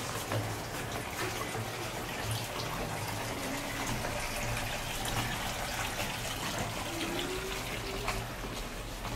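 Steady running water, an even rushing and trickling.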